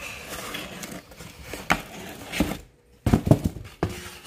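Molded paper-pulp packaging insert scraping and rubbing against the inside of a cardboard box as it is lifted out, with a few sharp knocks; a louder cluster of knocks and scrapes about three seconds in.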